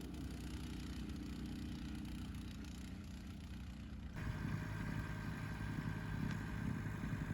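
Small engines of snow blowers running steadily. About four seconds in there is an abrupt change to a louder, rougher-running machine.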